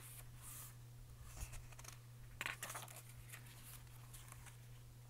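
Faint rustle of paper pages and photo cards being turned and handled in a notebook-style songbook, a few soft swishes over a low steady hum.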